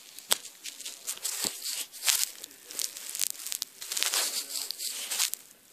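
Handling noise: irregular rustling and scraping with a few sharp clicks as the camera is moved about.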